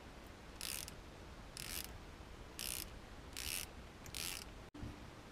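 Hand socket ratchet clicking in five short strokes, about one a second, as bolts are run down into the water pump housing of an outboard's lower unit.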